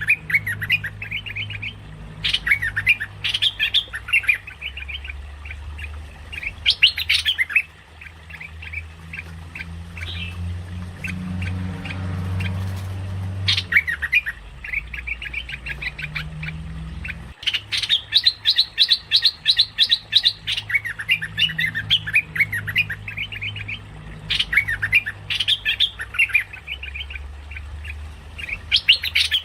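Merbah lekir bulbul calling in repeated bursts of fast chattering notes with short pauses between them, over a steady low hum.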